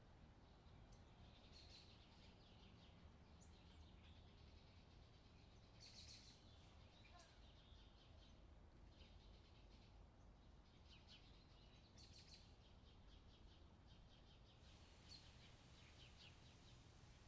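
Faint outdoor summer ambience: distant small birds chirping on and off over a steady low background rumble.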